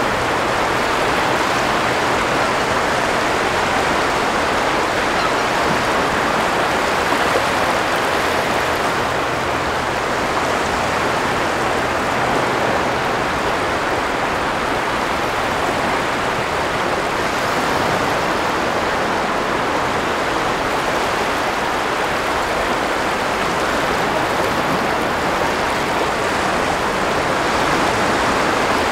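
Sea surf washing over a shallow sandbar on a sandy shore: a steady, continuous rush of water with no single breaker standing out.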